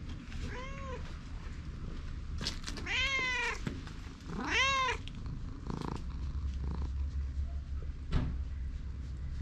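Orange tabby cat meowing three times: a short faint meow, then two longer, louder ones about three and four and a half seconds in. A single sharp tap comes near the end.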